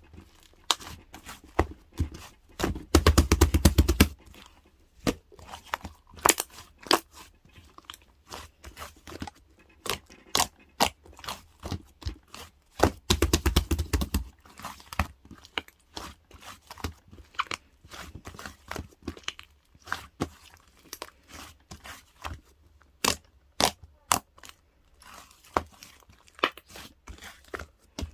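White slime being squeezed and stretched by hand: a stream of sticky clicks and pops. Two dense runs of rapid popping, about three and thirteen seconds in, are the loudest parts.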